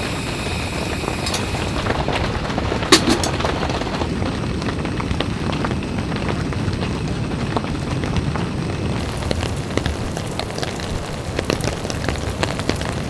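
Rain falling on tent fabric: a steady low rumble with many small drop ticks, and one sharp click about three seconds in.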